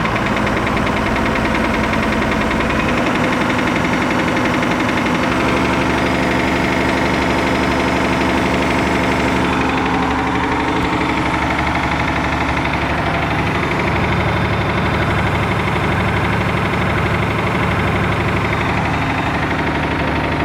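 Perkins T6.354 M six-cylinder marine diesel running with a knock in it. Its note shifts a few seconds in and again about halfway through, as the engine speed changes.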